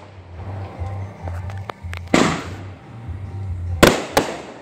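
Aerial fireworks going off overhead: a few faint crackles, then a loud bang about two seconds in, and two more sharp bangs in quick succession near the end.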